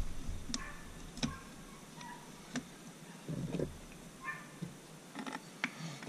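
Scattered light clicks and taps of metal engine parts and tools being handled at an outboard powerhead block during piston installation, with a duller knock a little past the middle and a couple of brief squeaks.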